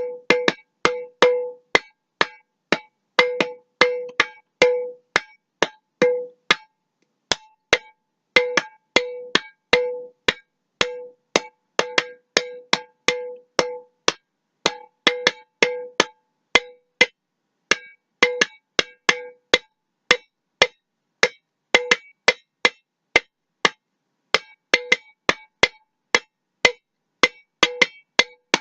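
Glass mason jar tapped over and over in a loose, uneven rhythm of about two or three taps a second, many of the taps giving a short ringing note, with a few brief pauses.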